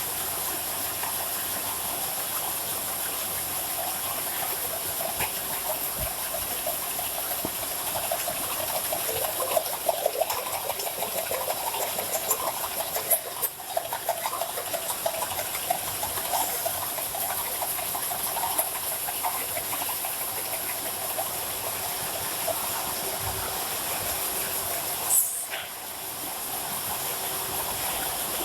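Automatic can body welding machine running: a steady hissing machine noise with clattering rattles through the middle, and one sharp knock near the end followed by a brief drop in the noise.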